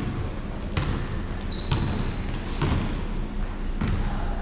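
Basketball bouncing on a hardwood gym floor, four thuds about a second apart, with short high squeaks between them.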